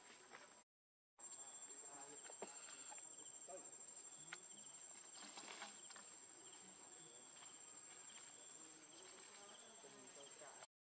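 Faint, steady, high-pitched insect trill with faint scattered clicks and rustles. The sound cuts out completely for about half a second just under a second in, and again at the very end.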